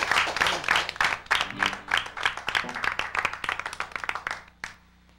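Small audience clapping, the applause thinning out and stopping about four and a half seconds in, with one last clap just after.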